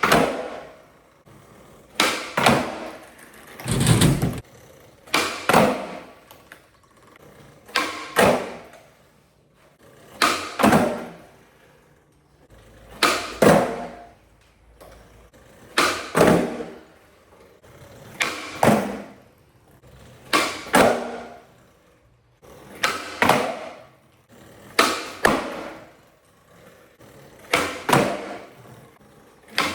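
Skateboard tricks on flat ground, over and over: about a dozen times, roughly every two and a half seconds, the tail pops with a sharp crack and the board lands with a second knock a moment later.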